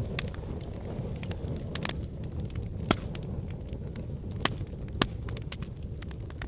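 Wood fire burning in a fireplace: a steady low rumble of flames with scattered sharp crackles and pops, three louder snaps about three, four and a half and five seconds in.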